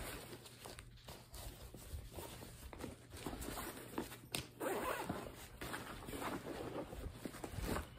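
A zipper on a nylon backpack being worked and the bag's fabric rustling as hands rummage through a compartment, with a few sharp clicks among the irregular scrapes.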